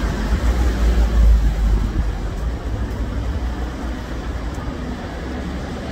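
Road traffic noise on a city street, a steady rumble of passing vehicles that is loudest about a second in and then eases.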